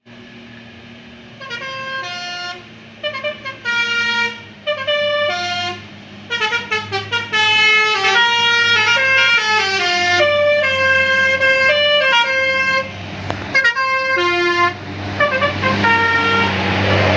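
Bus telolet horns playing short melodies of stepped notes, several tunes overlapping and answering one another, over the steady low running of a bus engine that gets louder near the end.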